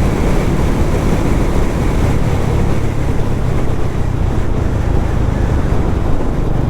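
Wind rushing over a helmet-mounted microphone with a motorcycle's engine running underneath, a steady noise while riding at road speed.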